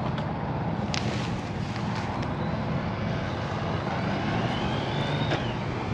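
Motorcycle engine running steadily at low speed.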